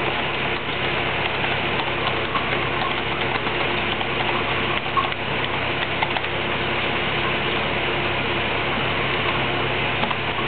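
Steady hum with a hiss underneath, like a running machine or electrical equipment, with a few faint ticks.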